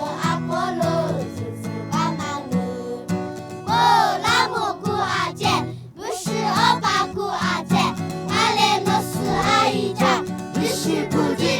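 A children's choir of young girls singing a song over a steady instrumental accompaniment.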